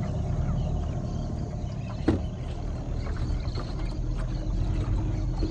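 Small boat's motor running steadily with a low hum, with a short knock about two seconds in.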